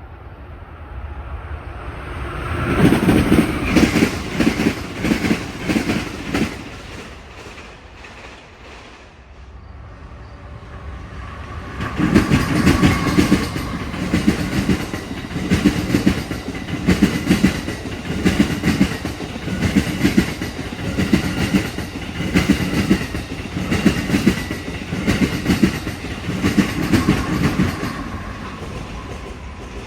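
A train passing at speed, its wheels clacking rhythmically over the rail joints. A short burst of clatter comes a few seconds in, then a longer run of steady clickety-clack from about twelve seconds in, fading near the end.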